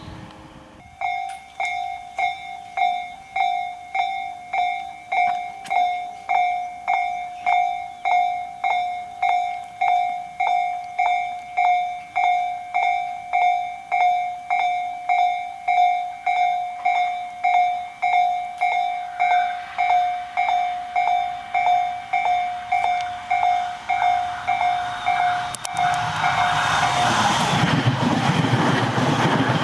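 Japanese level-crossing warning bell starting up about a second in and dinging steadily, about three strokes every two seconds: the crossing is closing for an oncoming train. Near the end a Tobu Noda Line train comes through the crossing, its running noise covering the bell.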